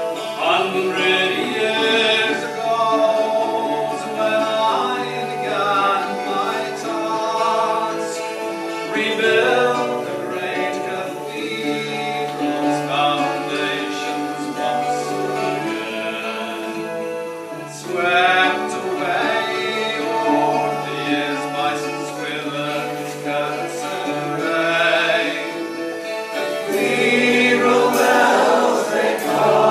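Live folk band music: several voices singing together over a sustained low accompaniment.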